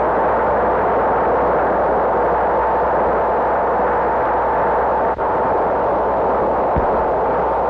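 Steady, unchanging rushing noise from an old newsreel soundtrack, standing in for the rumble of the atomic blast, with a brief dropout about five seconds in and a short low thump near the end.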